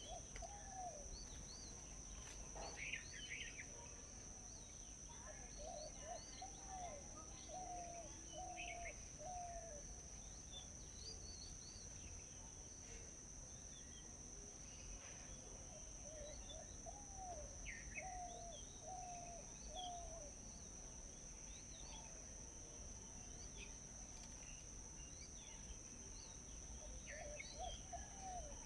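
Birds calling: one bird repeats a short lower call in runs of four or five, several times over, while other birds give scattered higher chirps. Under them runs a steady high insect drone.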